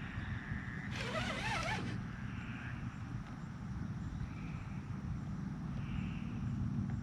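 Fishing reel's drag buzzing briefly about a second in, wavering in pitch, as a large flathead catfish pulls line off the reel. A steady low rumble runs underneath.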